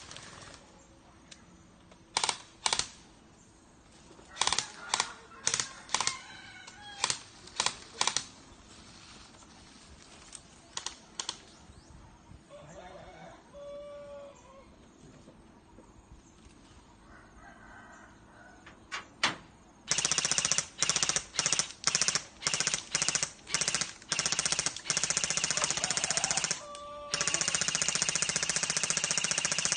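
Airsoft BB guns firing: scattered single shots, then from about two-thirds of the way in rapid shots about two a second that run into a sustained full-auto burst near the end. A rooster crows once near the middle.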